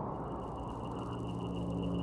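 Ambient music: a steady, softly pulsing high tone, joined about halfway through by sustained low ringing tones like a gong, over a fading hiss.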